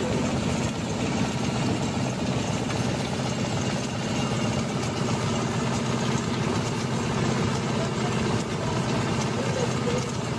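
Small engine running steadily at an even idle as it turns over a cutaway radial aircraft engine, with a constant low mechanical hum.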